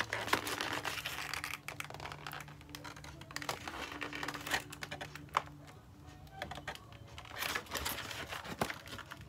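Cardboard doll box and its paper packaging handled by hand: scattered crinkles, taps and scrapes as fingers work at the box, over a faint steady hum.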